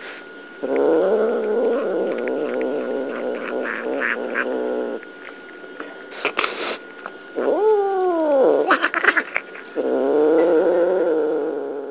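Two domestic cats growling at each other while eating side by side: a long low growl from about a second in, two short harsh noisy bursts, a yowl that rises and falls, then another long growl near the end.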